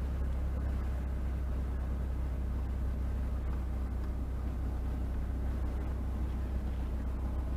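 A car's engine running at low speed, heard inside the cabin as a steady low rumble with faint road noise.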